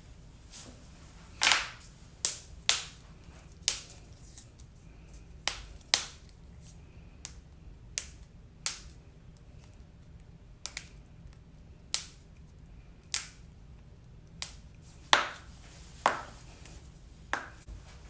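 Joints cracking: a run of sharp, sudden pops at irregular spacing, roughly one a second, some much louder than others.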